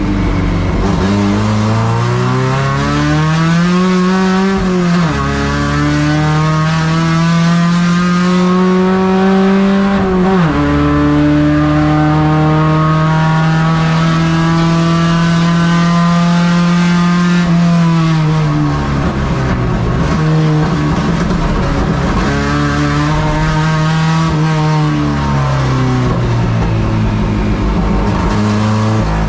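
Carbureted four-cylinder engine of a Chevrolet Caravan race car, heard from inside the car at racing speed. The revs climb and drop sharply at upshifts about 5 and 10 seconds in, then hold high and steady for several seconds. Near 18 seconds they fall away, then rise and fall again toward the end.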